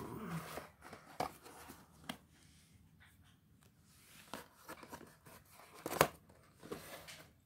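Cardboard box being handled: scattered light taps, scrapes and rustles, with one sharp knock about six seconds in.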